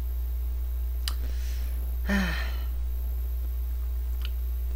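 A steady low electrical hum, with a faint click about a second in, a short breathy sigh with a falling voice about two seconds in, and another faint click near the end.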